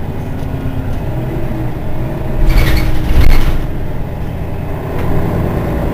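Mercedes-Benz Citaro city bus idling at a stop, its engine running with a steady low hum. About two and a half seconds in come two short hisses close together.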